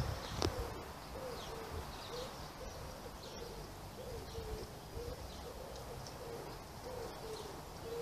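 A dove cooing, a steady string of low rising-and-falling notes, with small birds chirping faintly higher up. A brief knock sounds about half a second in.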